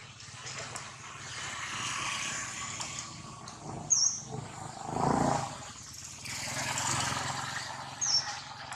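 Outdoor ambience with a steady background hiss, two short high chirps about four seconds apart, and a brief low rumble in the middle.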